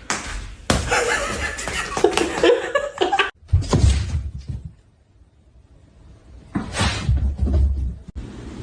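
A person laughing for about two and a half seconds, cut off abruptly. Then come two short noisy bursts with low thumps, about three seconds apart.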